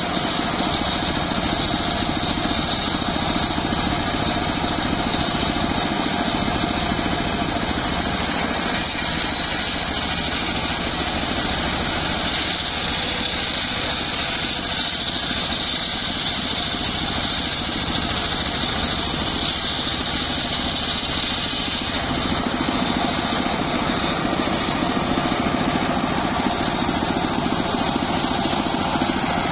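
Large sawmill circular saw bench running steadily, its blade ripping lengthwise through a mahogany plank with a high whine. About two-thirds of the way through, the whine eases and a lower running tone takes over.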